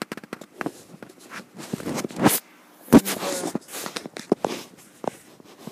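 Handling noise from a handheld camera: irregular clicks, knocks and rustling scrapes close to the microphone, loudest about two and three seconds in.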